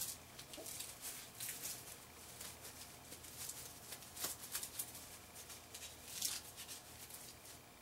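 Faint rustling and scattered small clicks from a fabric motion-capture hand strap and its sensor modules being handled and fitted on the hand.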